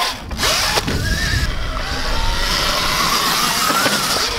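Electric dirt bike's motor whining, its pitch rising and falling with the throttle, over a steady low rumble.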